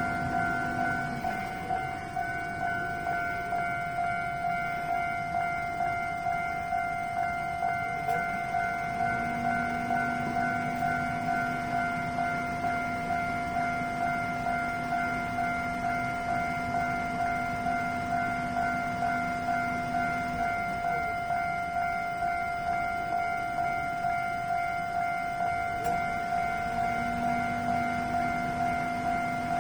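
Japanese level-crossing alarm ringing: an electronic bell repeating the same high ding in an even, fast rhythm without a break. A lower steady tone starts about nine seconds in, stops around twenty seconds, and comes back near the end.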